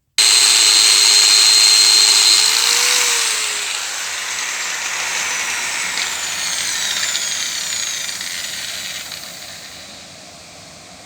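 Angle grinder spinning a Yamaha TMAX 500 scooter's front wheel up to speed. After about three seconds it lets go, and the wheel coasts down with falling high tones. The speedometer sensor drive is removed, and the howl that was there before is gone.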